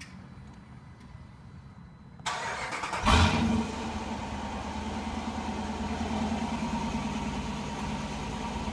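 2014 Dodge Durango R/T's 5.7-litre HEMI V8 starting by remote start: about two seconds in it cranks and catches, flares loudly a second later, then settles into a steady idle.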